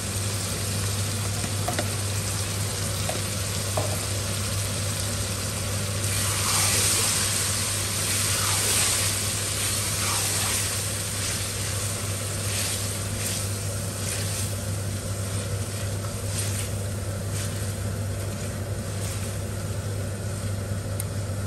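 Goat liver masala sizzling in a stainless steel kadai as yogurt is stirred into it with a spatula. The spatula scrapes the pan in short strokes, with a steady low hum underneath.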